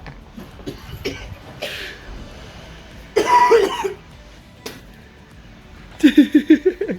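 A man coughing and spluttering from the burn of the raw hot chilies he has just eaten: one harsh cough about three seconds in, then a quick run of short coughs near the end. Music plays underneath.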